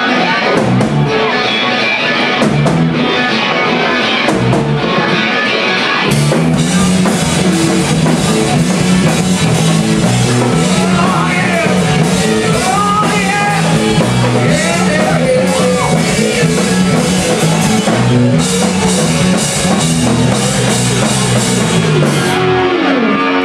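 Live rock band playing loud, with electric guitars, bass and drums and a male voice singing at times. The music gets fuller and brighter about six seconds in.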